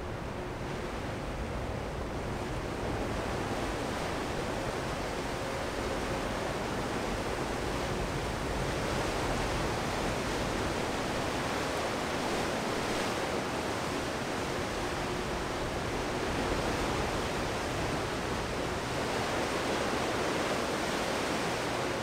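Steady rushing of wind and churned water on a ferry's open deck as it pulls into its slip, slowly growing louder, with a faint steady hum underneath.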